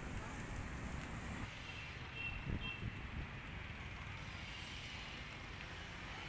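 Steady street background noise with a low rumble, and a couple of brief faint high chirps about two to three seconds in.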